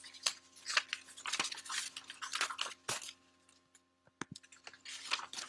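Paper rustling and crinkling in irregular bursts as paper pattern pieces and a manila folder are handled, with a quieter gap and a couple of sharp light clicks about four seconds in.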